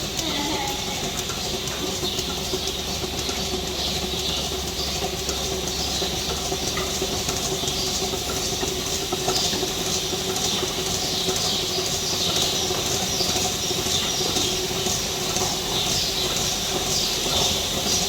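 Milking machine running: a steady mechanical hum with an even, fast rhythmic ticking and hiss from the pulsators and vacuum line.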